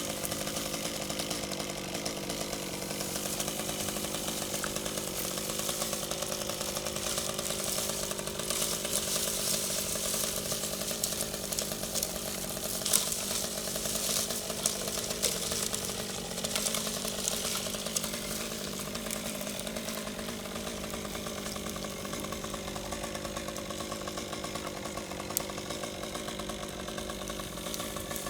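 Chainsaw running and cutting hackberry wood. Its engine note wavers throughout and turns louder and harsher through the middle of the stretch.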